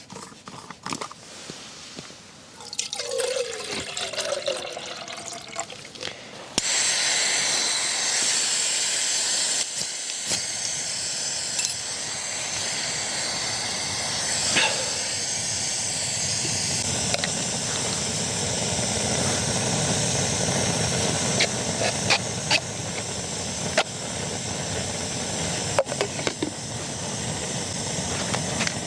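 Water is poured into a Jetboil cooking cup, then the Jetboil gas stove is lit about six and a half seconds in. Its burner hisses steadily from then on, with a few sharp ticks, as it heats the water to boil.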